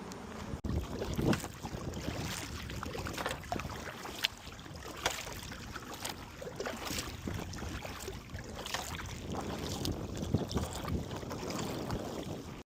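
Water splashing and lapping around a kayak in irregular little splashes, with wind buffeting the microphone.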